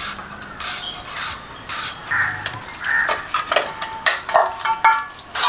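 Crows cawing again and again, with a few sharp knocks and clatters of kitchen handling in between.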